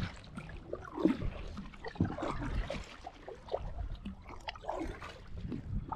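Irregular water splashes and drips with scattered knocks and rustles, from a just-landed fish being handled at a kayak.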